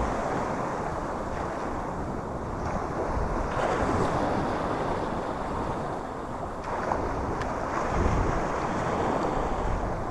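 Sea waves washing and sloshing close around the microphone, with wind buffeting it; the wash swells about four seconds in and again near eight seconds.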